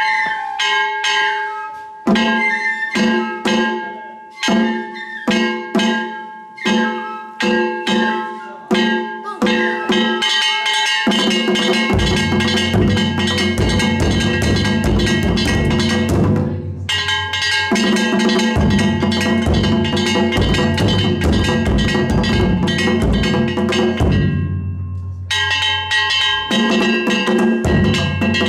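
Danjiri festival-float drumming: a large flat-headed taiko beaten with wooden mallets and a hanging barrel drum struck with sticks, with bright metallic ringing over the drums. It starts as separate strokes about one and a half a second, then about ten seconds in becomes a fast continuous beating, with a brief break past the middle and a short lull near the end before it resumes.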